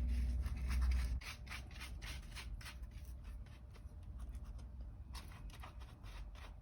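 Repeated scratchy strokes, about two or three a second: a tool spreading plaster-of-Paris paste over cardboard. A low hum sounds under the first second.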